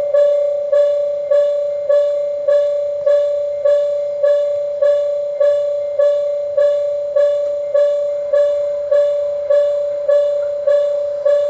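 Japanese railway level-crossing warning bell, an electronic bell striking steadily a little under twice a second, each strike fading into a held tone. It is the warning that a train is approaching the crossing.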